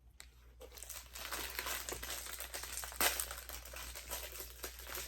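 Snack packaging crinkling and rustling as it is handled and opened, with one sharp crackle about three seconds in.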